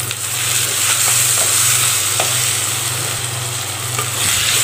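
Chopped tomatoes and onions sizzling in hot oil in a clay pot as a wooden spatula stirs them. The sizzle is steady and gets louder about a second in, with a few faint scrapes of the spatula against the pot and a steady low hum underneath.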